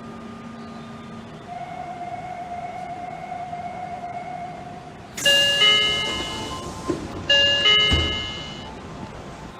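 Train door chime sound effect, a two-note ding-dong played twice, each time ringing out and fading, after a few seconds of faint steady tones. A low thud falls near the end of the second chime.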